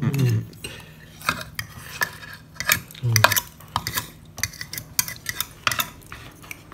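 Spoons and forks clicking and scraping against plates as people eat, in quick irregular clinks. There is a brief murmur of a voice at the start and again about three seconds in.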